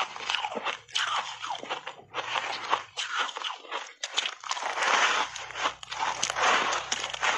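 Refrozen block ice coated in matcha tea powder crunching and cracking in big bites and chews, a dense run of crisp crunches that is loudest in the second half, picked up close by a clip-on microphone.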